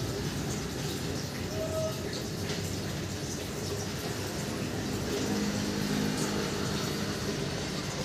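Steady hiss of rain falling, with a short whistle-like chirp about two seconds in and a low hum rising under it around the middle.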